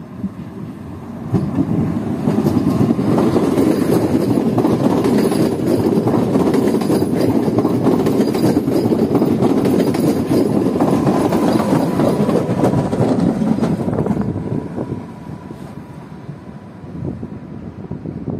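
A Newag Impuls 45WE electric multiple unit rolls past close by on the station track. The sound swells about a second in, stays loud while the train passes, with a faint thin squeal partway through, and falls away near the end as the train moves off down the station.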